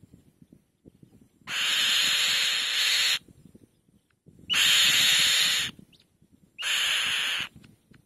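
Black-winged kite calls: three harsh, hissing screeches, the first the longest at under two seconds and the last the shortest, with short gaps between.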